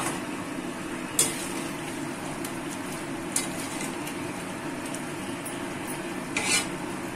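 Prawns and potatoes sizzling steadily in a watery masala gravy in a kadai. A steel spatula stirs and scrapes against the pan three times: about a second in, at about three and a half seconds, and near the end.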